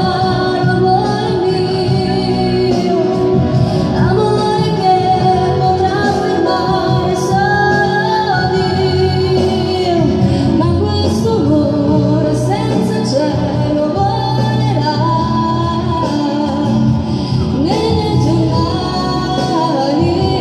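A woman singing a song over instrumental accompaniment, her voice holding long wavering notes.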